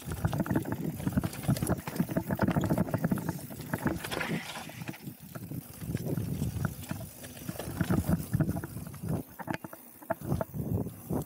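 Mountain bike being ridden fast down a dirt trail: the tyres run over dirt and gravel and the bike rattles and clatters over bumps, with a short hiss about four seconds in.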